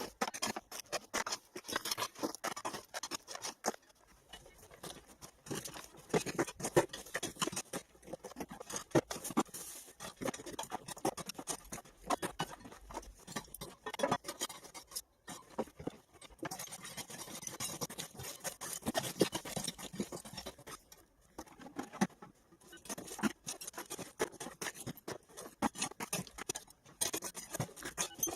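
Hand tools scraping and sweeping rubble and dust, a dense irregular run of scratches and small clicks with a few short pauses.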